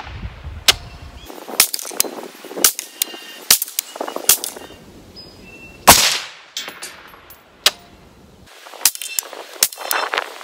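A single rifle shot from an FMF15 piston-driven 5.56 AR-15, a sharp crack with a short echoing tail about six seconds in. Lighter sharp clicks and knocks come before and after it.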